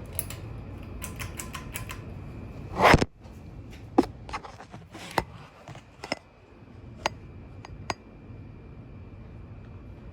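Mainstays 42-inch ceiling fan spinning down after being switched off: a low steady whir with a scatter of sharp clicks and taps, the loudest about three seconds in.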